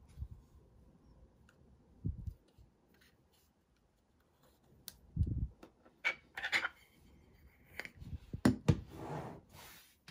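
Handling noise of a metal camera lens on its lens board in a cotton-gloved hand: a few soft bumps, then a run of sharp clicks, knocks and rubbing. The loudest knocks come near the end, as the lens is stood on the table.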